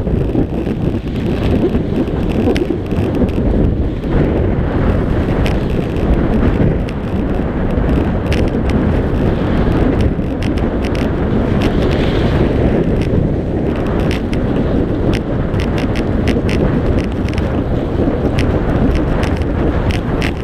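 Heavy wind rushing over the camera's microphone during a fast ski descent, with the skis scraping and chattering over packed snow in many short sharp clicks.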